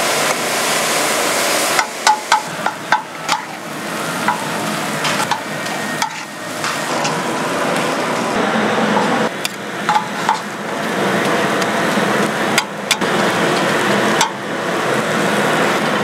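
Food sizzling in a large cast-iron pot lid while it is stirred and scraped with a metal utensil, with sharp clinks of the utensil against the iron, in a cluster a couple of seconds in and again later.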